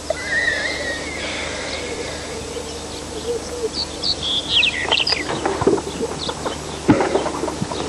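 Chickens clucking with high, short bird chirps, the chirps bunched around the middle.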